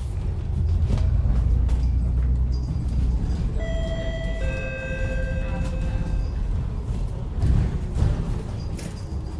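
Interior of a MAN Lion's City double-decker bus on the move: a steady low engine and road rumble, with a two-note chime about three and a half seconds in, a higher note then a lower one, ringing for about two seconds.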